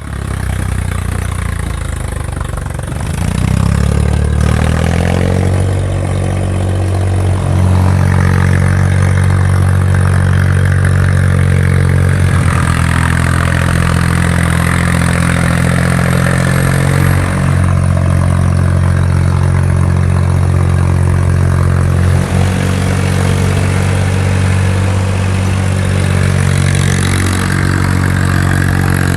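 IMT 539 tractor's diesel engine running under load. Its pitch rises about three seconds in, then it holds steady at higher revs.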